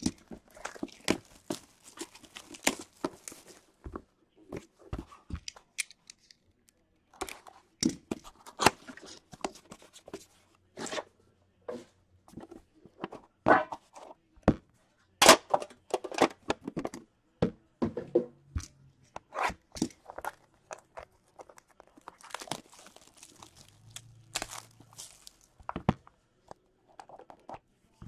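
Clear plastic shrink-wrap being torn and crinkled off a sealed box of Upper Deck The Cup hockey cards, in irregular crackles and rips. Light taps and rustles come from the cardboard box being handled and opened.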